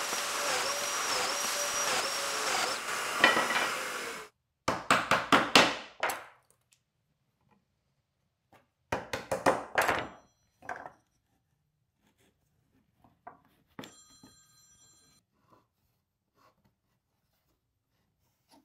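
A Festool Domino joiner runs with its dust extractor for about four seconds and then cuts off. It is followed by two quick clusters of sharp wooden knocks as cabinet face-frame rails and stiles are set down and fitted together on the bench, and a single click with a brief metallic ring.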